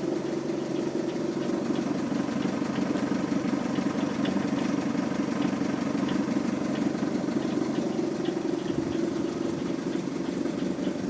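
Škoda Superb 2.0 diesel engine idling cold, with a light tick repeating a few times a second. The owner takes this knock for the flywheel.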